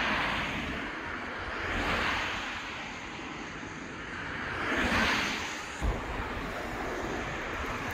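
Road traffic passing on a busy main road: vehicles going by one after another, each a swell of tyre and engine noise that rises and fades, the loudest about five seconds in. A brief low bump just before six seconds.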